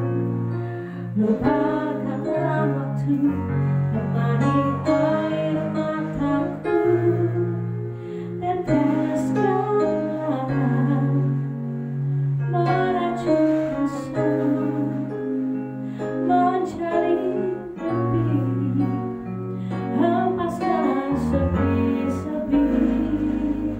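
Live keyboard accompaniment: rolling, guitar-like picked arpeggios over held bass notes, with a woman singing along at times.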